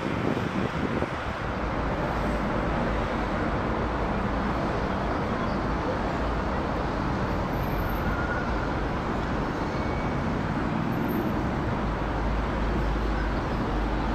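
Boeing 777-300ER's GE90-115B jet engines at climb power, a steady, deep, even jet noise as the airliner climbs out overhead. There is some wind buffeting on the microphone in the first second or so.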